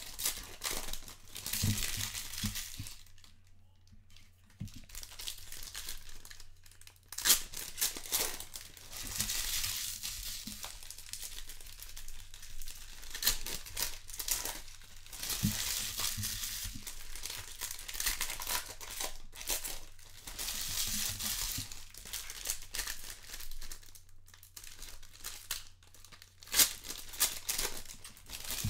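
Foil wrappers of 2020 Panini Certified football hobby packs being torn open and handled: irregular crinkling and rustling with a few sharp ticks, over a low steady hum.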